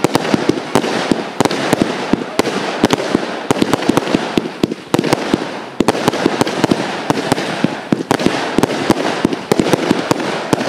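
Fireworks going off in a dense, unbroken barrage: many sharp bangs and pops, several a second, over a constant hiss.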